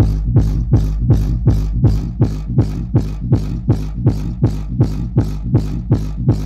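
Dance music with heavy bass and a kick drum beating about two and a half times a second, played loud through Atipro 18-inch 1500-watt speakers on a sound check.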